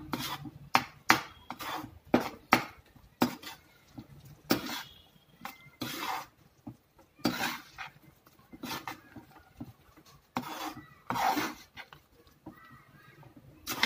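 Steel spoon stirring and mashing thick potato and pea curry in a metal pan: irregular clinks and longer scraping strokes against the pan's bottom and sides.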